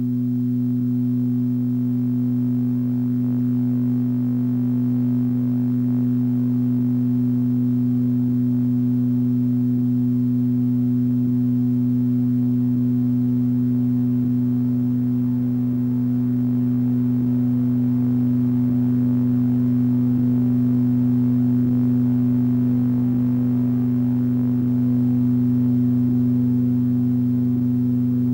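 Steady low electronic drone held on one pitch, with a strong tone an octave above and faint ticks pulsing through it.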